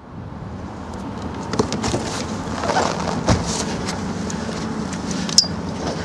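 Steady rushing noise on a small boat, with a few sharp knocks and rattles from the landing net and a large pike being handled on board, the loudest about three seconds in and near the end.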